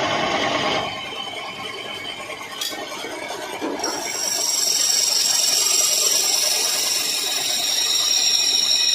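Wood lathe turning a workpiece while a hand chisel cuts into the spinning wood, a steady scraping and hiss; about four seconds in it gets louder and a high-pitched squeal of the tool on the wood sets in and holds.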